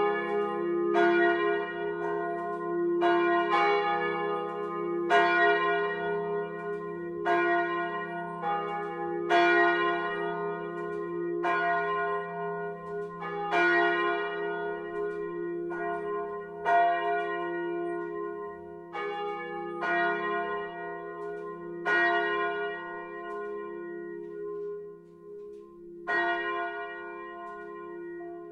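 Full peal of three 1948 Petit & Fritsen bronze church bells, tuned F, A-flat and B-flat, swinging on straight axles and heard close up in the bell chamber. The clappers strike about once a second in an uneven pattern over a steady hum of ringing tones, with a brief lull near the end.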